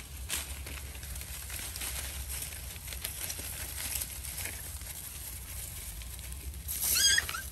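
Dogs eating scattered food, with many small clicks and crunches, and a brief high-pitched squeal about seven seconds in.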